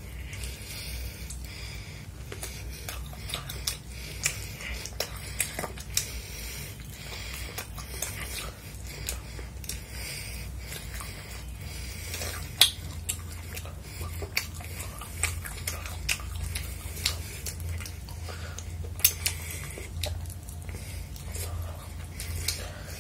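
Close-miked chewing and biting of battered chili chicken eaten by hand, with many short sharp clicks, over a steady low hum.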